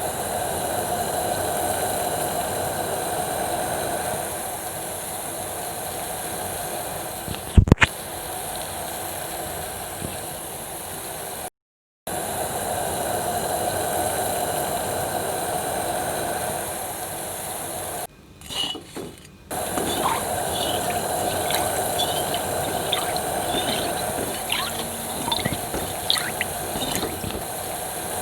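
Steady hiss of food cooking in a pan, with a sharp knock about eight seconds in. The hiss breaks off briefly twice, and a run of light clicks and taps of a utensil follows near the end.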